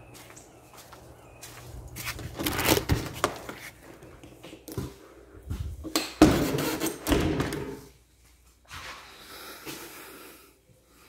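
A door being opened and shut, with knocks and thumps, loudest a little past the middle, then a faint steady hiss near the end.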